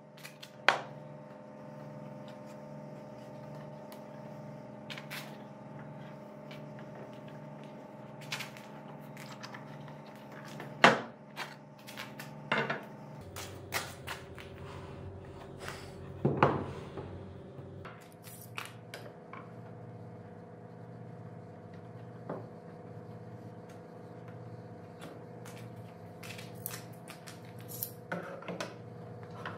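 Wooden boards knocked and set down on a workbench: scattered sharp clacks and thumps, the loudest just under a second in and around the middle, with metal bar clamps clinking near the end. A steady hum runs underneath.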